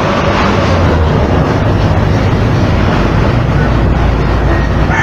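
Gas torch flame hissing steadily as it heats the copper refrigerant tubing of an air-con coil.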